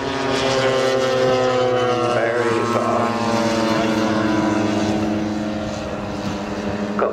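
Propeller aircraft engine running steadily, its pitch falling slowly, as of a plane passing by.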